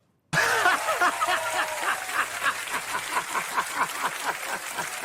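Crowd applause with laughter, starting abruptly after a brief silence: many fast claps over a steady wash of noise.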